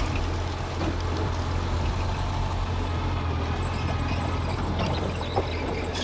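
Mitsubishi G2 bulldozer's diesel engine running steadily under load, a low even hum, with a short knock about five seconds in.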